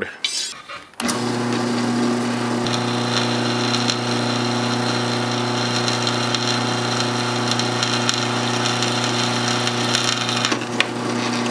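Drill press running steadily, its bit drilling holes through the steel tang of a Damascus katana blade. The motor starts about a second in with a steady hum, and a higher tone joins about three seconds in.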